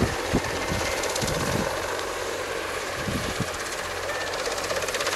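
An engine running steadily, with a few short low thuds.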